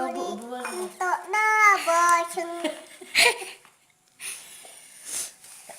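A child's voice in drawn-out, sing-song tones for the first couple of seconds, then a brief noisy burst about three seconds in.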